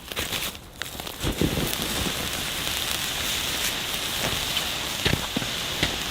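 Wood fire burning: a steady hiss with a few sharp pops and crackles scattered through.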